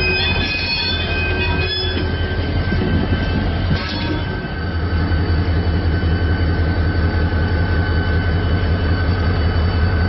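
Real train rolling by, with a steady deep rumble and wheels squealing in several high, held tones. The sound dips briefly about four seconds in, with a click.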